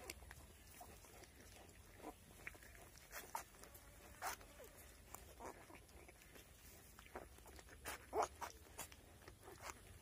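Faint, scattered short grunts and squeaks from a farrowing sow and her newborn piglets, a few seconds apart, the loudest near the end.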